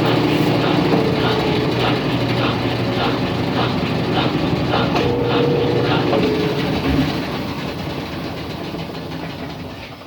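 Brastemp Ative top-load washing machine's drum spinning down after its spin cycle, with a steady motor hum and a rhythmic ticking about twice a second. The sound fades over the last few seconds as the drum coasts to a stop.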